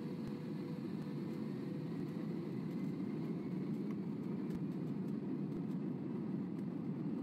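Jet airliner engine noise: a steady low rumble with a faint high whine rising slowly through the first few seconds.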